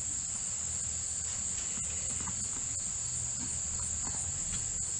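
Steady high-pitched insect chorus, with a faint low rumble underneath.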